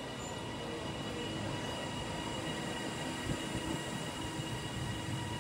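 Passenger multiple-unit train in TransPennine Express livery running slowly along the platform: a steady rumble of wheels on rail with a steady high-pitched whine over it.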